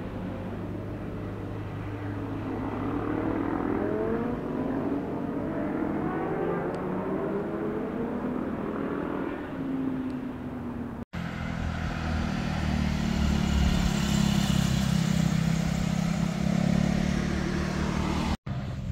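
Motorcycle engines passing by, their pitch rising and falling as they accelerate and shift gears. About eleven seconds in, the sound cuts to a steadier, louder engine passing close.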